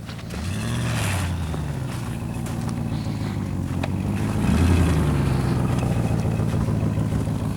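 Car engine running under load and revving up twice, once about half a second in and again, louder, around four and a half seconds in.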